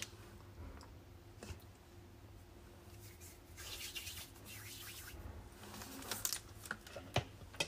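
Faint rustling of hands rubbing a large herbal pill into small pellets, with a few light clicks near the end.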